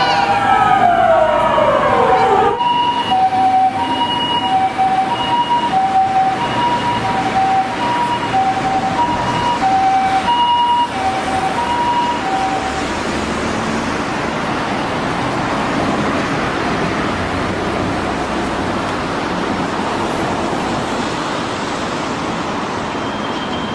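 Japanese ambulance siren: a couple of seconds of rapidly falling sweeping tones, then the two-tone hi-lo "pee-po" siren alternating steadily between a higher and a lower note. The siren fades away about halfway through, leaving steady traffic noise.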